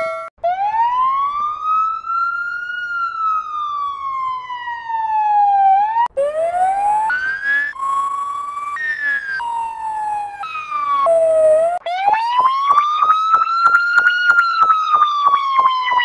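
Modern fire truck siren played in edited variations. First comes one wail that rises for a couple of seconds, then falls slowly. Next comes a stretch of abrupt jumping pitches with several tones layered, and then another rising-and-falling wail with a fast regular pulsing running through it.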